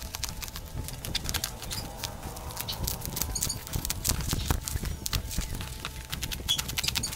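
Plastic bubble wrap crinkling and rustling in a dense run of irregular crackles as it is cut open with scissors and pulled off a cardboard box.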